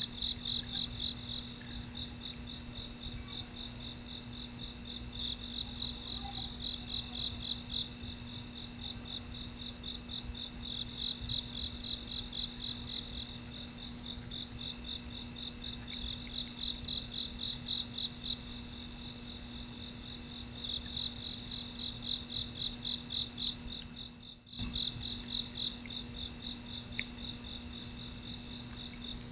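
Crickets and other insects calling together: a steady high trill over a lower, rapidly pulsing chirp that swells and fades in waves every few seconds. About three-quarters of the way through, the sound dips out for a moment and comes back with a click.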